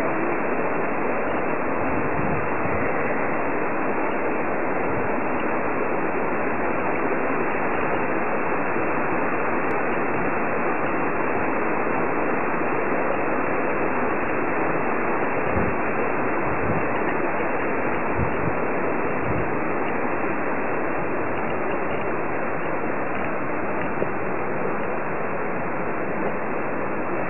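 Steady, even rushing noise of flowing water, unchanged throughout.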